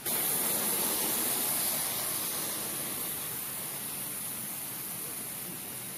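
A steady hiss from an HO-scale model train on the layout, starting suddenly and slowly fading.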